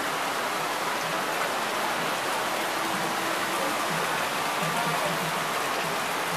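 Steady heavy rain falling on ground and plants.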